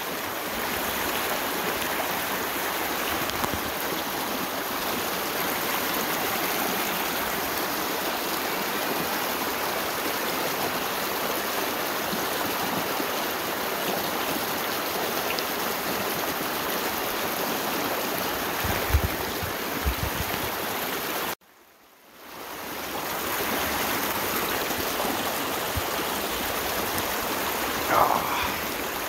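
Small mountain creek running steadily over rocks, close by, in an even wash of water. A couple of low thumps come about two-thirds of the way through. Shortly after, the sound cuts out abruptly for about a second and then fades back in.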